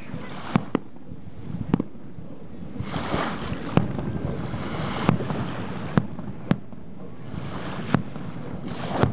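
Distant aerial fireworks bursting, about eight sharp bangs at irregular intervals, over the steady wash of small waves on the shore that swells twice.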